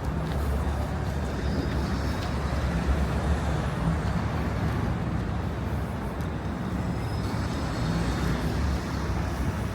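City street traffic: a steady low rumble of engines and tyres from passing vehicles.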